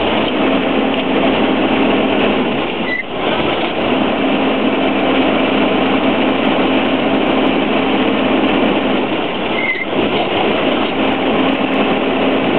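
Fortschritt E 512 combine harvester running, its engine and belt-driven pulleys turning with a loud, steady drone. A steady hum in it drops out briefly twice. The machine has a worn-out belt that no longer carries the maize up.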